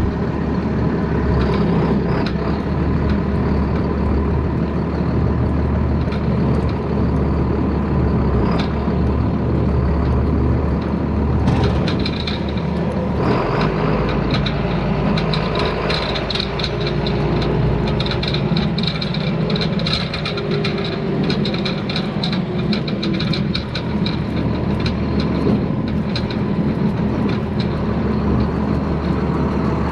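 Large diesel engine of a farm tractor running steadily, its pitch dropping about thirteen seconds in, with rattling and clattering joining from about twelve seconds on.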